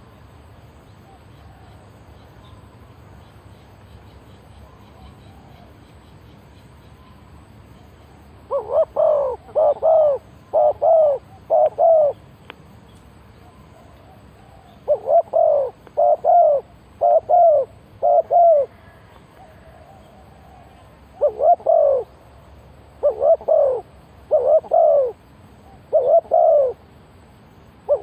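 Spotted dove cooing: three bouts of about four or five hollow coos each, the first starting about eight seconds in, with a low steady hum before and between them.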